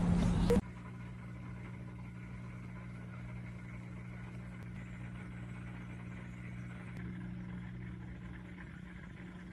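Steady low hum of aquarium equipment running, such as a filter or air pump, with part of the hum dropping out near the end. A brief burst of street noise and voices is cut off about half a second in.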